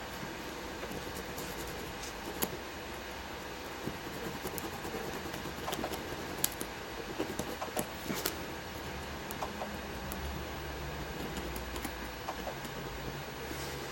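Small hand file scratching the metal leads of a laptop power jack to roughen them for solder: scattered light scrapes and clicks over a steady background hum.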